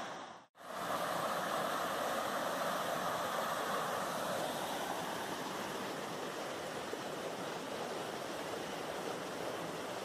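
Water of a rocky stream at a waterfall rushing over stones, a steady hiss that cuts out briefly about half a second in.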